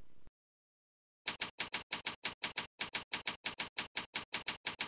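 Keyboard typing clicks, evenly spaced at about six a second, starting about a second in as a terminal command is typed.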